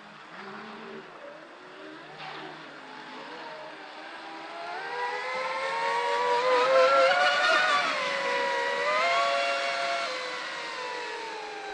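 Whine of the twin SSS 2075kv brushless motors of a carbon-fibre TFL Zonda RC speedboat running on 6S. It is faint at first, builds in pitch and loudness to a peak a little past the middle, then drops in pitch and fades.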